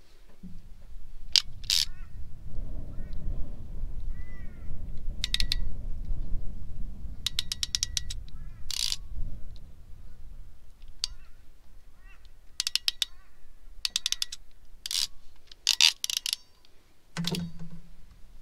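Short runs of rapid metallic ratchet clicks from a hand tool being worked on an air-conditioning hose fitting, coming in several separate bursts. A low rumble runs under the first half and is the loudest sound there.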